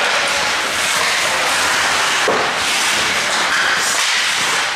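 Ice hockey game sounds in a rink: a steady hiss of skates on the ice and crowd noise, with a single sharp knock about two seconds in.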